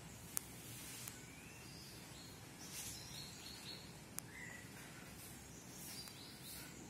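Faint birds calling: a few short rising chirps and quick high notes, over steady low background noise. Three sharp clicks cut in, the loudest less than half a second in.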